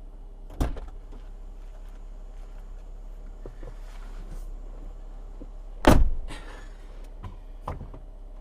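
A few sharp knocks: one about half a second in, a louder one about six seconds in, and two fainter ones near the end, over a steady low hum.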